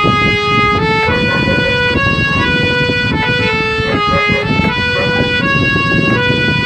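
Harmonium playing a melody of held notes that step up and down in pitch, over a steady hand-drum rhythm, in an instrumental passage of a Baul song.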